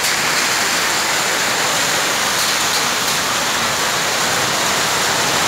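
Heavy rain mixed with hail pouring down in a steady, dense rush of noise.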